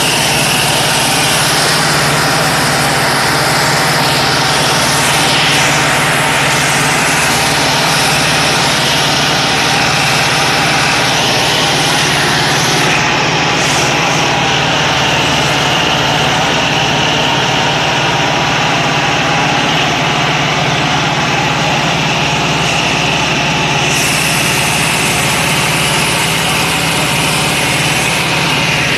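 Jodel D112's single-engine propeller drive, a Continental A65 flat-four, running steadily at cruise power, heard from inside the small cockpit as a loud, constant drone.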